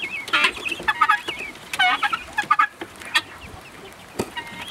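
A flock of helmeted guineafowl calling: harsh, fast, rattling chatter repeated in short bouts, with a few sharp clicks near the end.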